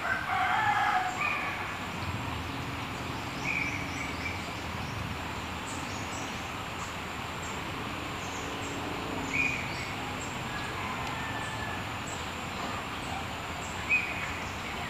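Outdoor riverside ambience: birds giving short calls every few seconds, with a louder burst of calls in the first second, over a steady background hiss and a thin high steady whine.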